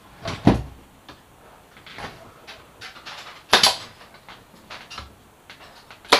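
A 23-gauge pneumatic pin nailer and its air hose being handled against a mahogany frame: a few knocks and clatters, then a sharp crack near the end as the nailer fires a pin.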